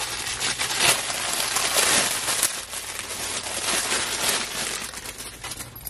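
Clear plastic packaging crinkling and crackling steadily as hands work a fabric makeup bag inside it.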